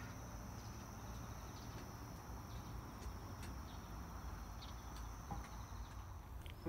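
Faint outdoor ambience: an insect's steady high-pitched trill, with a few short faint chirps scattered through and a low background hum. The trill stops near the end.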